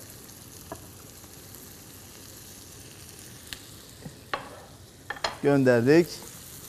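Diced onion, carrot and peppers sizzling steadily as they sauté in an oiled pan, with a few light knocks as the chopped tomatoes go in and the wooden spoon works the pan.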